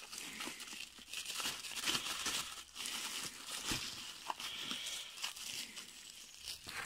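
Plastic bubble-wrap bag being handled and pulled open, with irregular crinkling and rustling.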